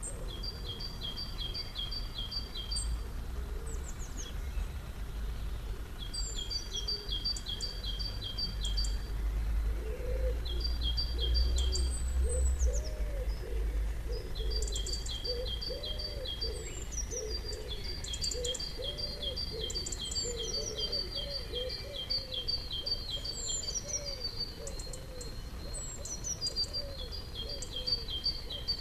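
A small songbird sings repeated phrases of quick, high notes at two alternating pitches, with short pauses between phrases. From about ten seconds in, soft low cooing repeats underneath, typical of wood pigeons, over a low rumble that swells around the middle.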